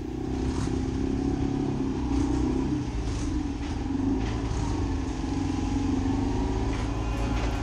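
Honda CG125's single-cylinder four-stroke engine running steadily at low speed, its note wavering slightly as the bike rides through the enclosed carriage of a train.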